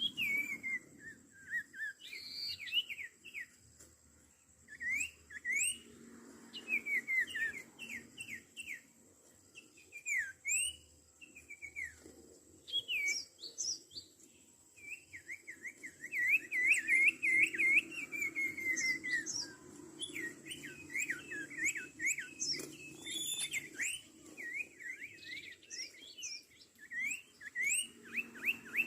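Common iora (sirtu, cipoh) calling almost without pause: a rapid chatter of short, sweeping whistled notes, with one long fast run of repeated notes about halfway through.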